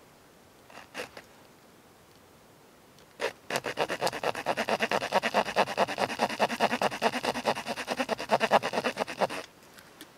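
Small saw blade of a folding pocket knife cutting into a thin wooden stick with quick, even back-and-forth strokes, a rasping run that starts about three seconds in and stops about a second before the end.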